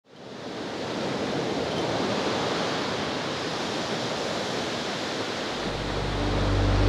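Sea waves washing, a steady rushing surf sound that fades in at the start. About five and a half seconds in, a low steady musical drone comes in and swells.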